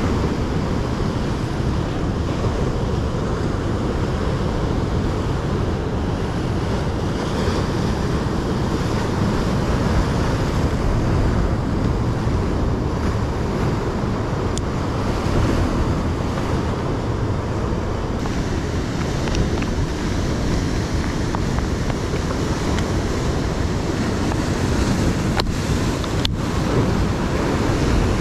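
Heavy surf breaking and washing over rocks, a steady rushing noise, with wind buffeting the microphone. A few small sharp clicks in the second half.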